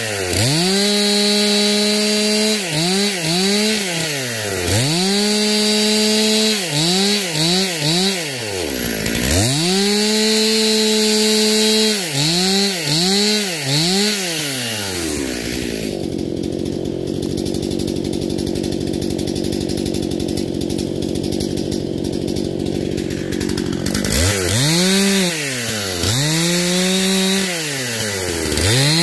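STIHL MS 261 C-M two-stroke chainsaw revved over and over with the bar out of the wood. The throttle is squeezed to a steady high-pitched whine and let off again many times in quick succession. Past the middle the saw idles for about eight seconds, then it is revved several more times near the end.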